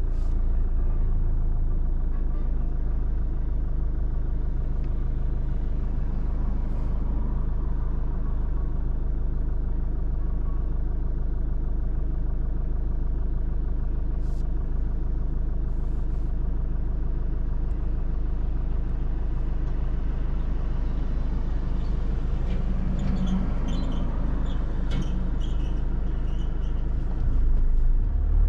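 Car driving on city streets, heard from inside the car: a steady low engine and road rumble. A brief rise in other traffic noise comes about three-quarters of the way through.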